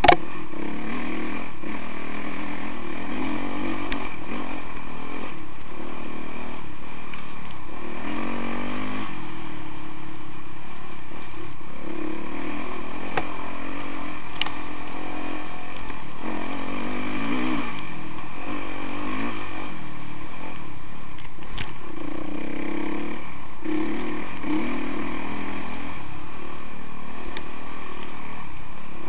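Honda CRF 450R's single-cylinder four-stroke engine running under load as the dirt bike rides a rough trail, its pitch rising and falling over and over with the throttle.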